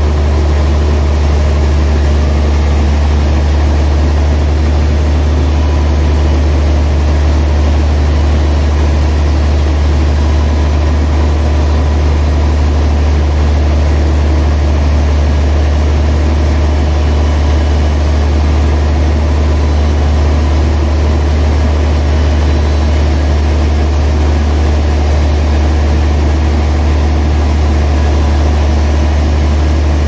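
Large band sawmill running steadily as its blade cuts through a big log, a loud, unbroken machine noise over a steady low hum.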